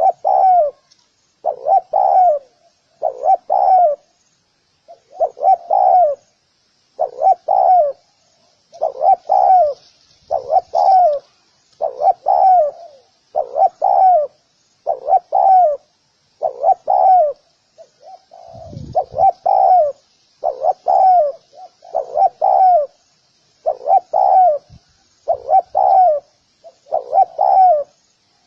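Spotted dove cooing over and over in short phrases of two or three notes that bend up and down, one phrase about every second and a half. A brief low rumble comes about two-thirds of the way through.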